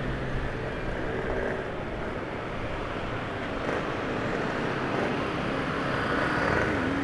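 Steady vehicle engine hum with road and traffic noise, in slow-moving traffic.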